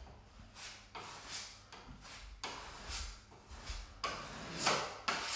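Metal putty knife scraping wood putty into nail holes on wooden door casing: a string of short scrapes, about two a second, the loudest near the end.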